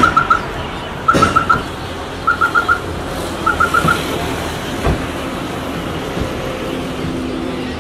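Groups of four quick, high electronic beeps repeating about once a second over street traffic noise. The beeps stop about halfway through, and a single short knock follows.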